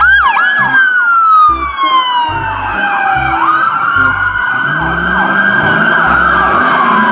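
Police siren sound effect: a slow wail that falls, climbs back about three and a half seconds in and falls again, overlaid with fast repeated rise-and-fall yelps. A low, regular thump runs beneath it.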